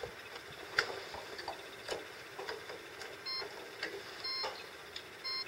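Light clicks and taps of test leads and crocodile clips being handled on the fuse board's breakers. In the second half come three short electronic beeps about a second apart from an electrical test meter during R1+R2 continuity testing.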